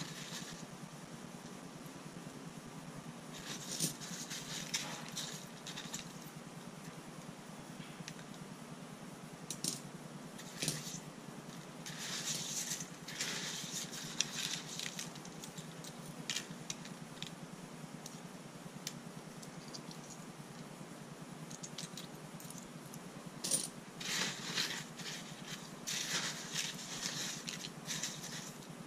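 Hands sifting a pile of coins and steel pin tumbling media in a sifter. The metal clinks and jingles in irregular bursts, loudest near the middle and again toward the end.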